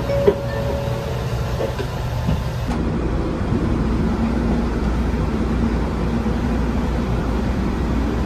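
Train running, a steady low rumble; about three seconds in the sound shifts and a steady low hum joins it.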